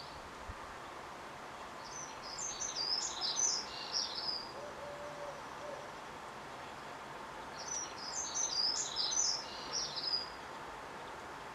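A small songbird sings two short phrases of quick, high twittering notes, one about two seconds in and one about eight seconds in. A steady faint background noise runs underneath.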